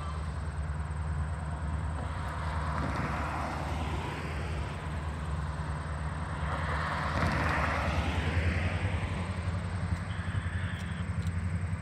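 Diesel locomotive engine idling, a steady low drone, with a broad swell of noise loudest about eight seconds in.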